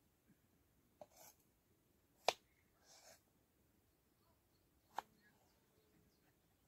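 Kitchen knife cutting potatoes on a wooden cutting board: three sharp knocks of the blade on the board, about a second in, just past two seconds (the loudest) and at five seconds, with soft slicing scrapes in between.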